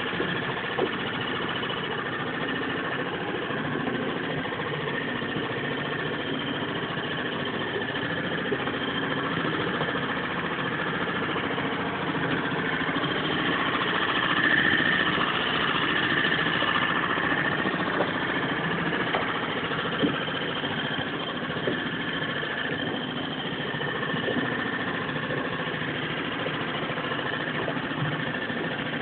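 Yamaha 2-horsepower outboard motor running steadily, pushing a small boat along, a little louder about halfway through.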